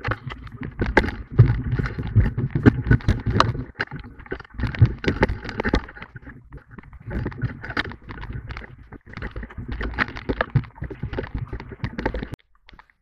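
Canoe being launched and paddled out into a fast river current: frequent knocks and bumps of paddles and gear against the hull over rushing water and a low rumble. The sound cuts off abruptly near the end.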